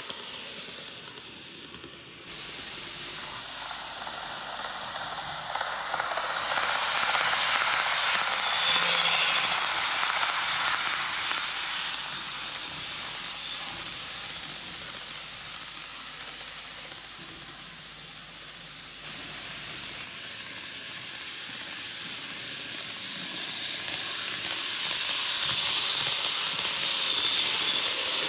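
KATO N-gauge E4 Series 'Max Toki' eight-car model Shinkansen running on TOMIX canted track: the steady whirring running noise of its wheels on the rails and its motor. It swells twice as the train comes near, about a third of the way in and again near the end, where it is loudest as it passes close.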